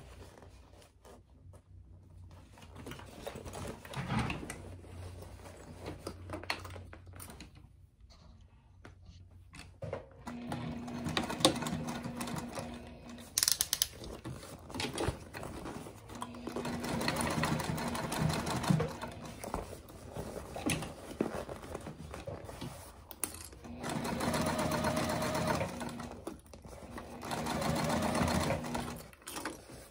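Juki TL-2010Q straight-stitch sewing machine stitching through a cork bag panel. It starts about a third of the way in and runs in several spurts of a few seconds each, with short stops between them.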